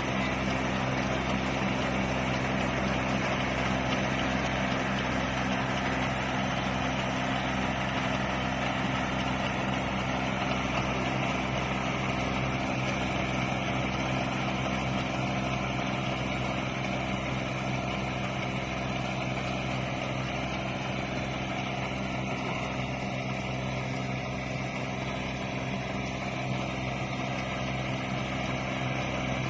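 Engine of a rice-harvesting machine running steadily, a constant drone that holds the same pitch throughout.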